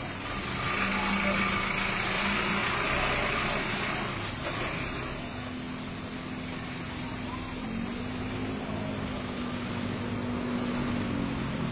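Small box truck driving past, its engine and tyres loudest in the first few seconds. Then a steady engine hum from another vehicle follows.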